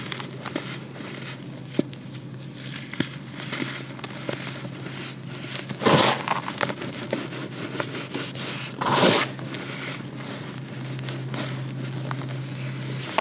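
Dry red dirt crunching and crumbling between bare fingers and pouring back into a plastic basin: a gritty crackle with scattered small clicks. Two louder crunching rushes come about six and nine seconds in, as the hands plunge into and scoop the dirt.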